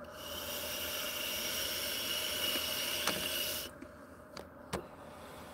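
Box-mod vape firing during a long drag: a steady hiss with a faint airflow whistle for about three and a half seconds that cuts off suddenly, followed by a couple of soft clicks.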